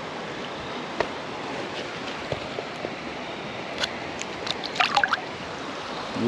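Shallow creek water running steadily, with a few short splashes about four to five seconds in as a hand lowers a brown trout into the water and lets it swim off.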